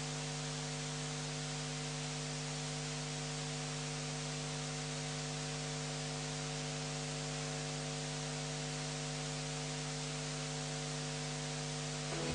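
Steady electrical hum with a faint hiss underneath, unchanging throughout, with no room sound: the recording's noise floor. Music begins right at the end.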